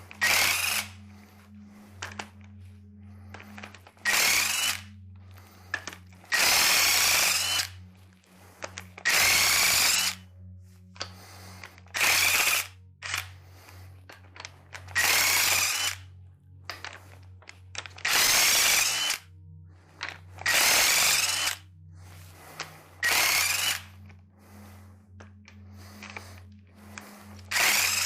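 Power tool spinning in about nine short runs, each under about a second and a few seconds apart, its whine rising within each run, as it loosens the cylinder head bolts on a Chevy 350 small-block.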